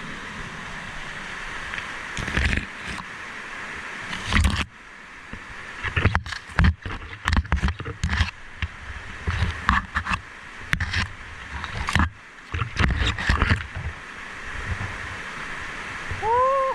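Steady rush of a fast mountain river, broken by a run of loud, irregular knocks and thumps, with a short rising call near the end.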